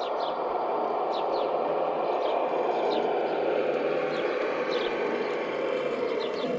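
Steady mechanical whirr of a radio-controlled model construction machine running. Short, downward-sweeping bird chirps sound about once a second over it.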